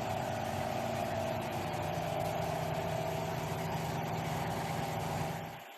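Car engine idling steadily, then cutting off abruptly near the end.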